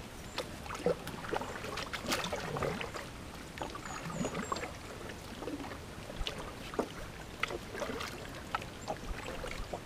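Paddling a cedar strip canoe: irregular light knocks of the paddle and small splashes and drips of water, with a few brief high bird chirps about halfway through.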